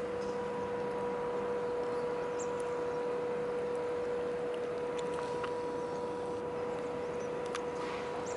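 A steady hum at one pitch over a hiss of background noise, with a few faint clicks.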